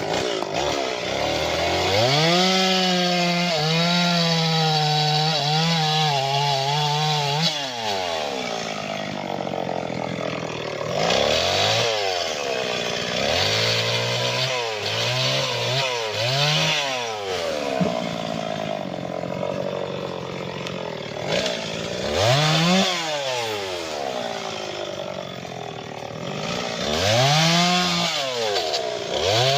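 Two-stroke chainsaw repeatedly revved to full throttle and cutting acacia wood, dropping back toward idle between cuts; the longest cut, about five seconds, comes near the start, followed by several shorter bursts.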